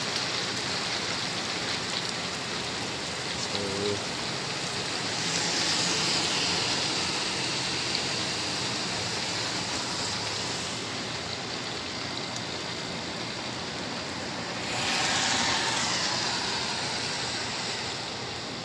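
Steady rain, with the tyre hiss of vehicles passing on the wet road swelling twice: about five seconds in and again near fifteen seconds, each pass falling in pitch as it goes by.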